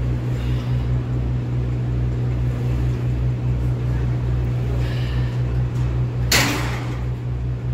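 Steady low machine hum with a regular throb, about two or three pulses a second. About six seconds in comes a short, forceful breath out from a man squatting a loaded barbell.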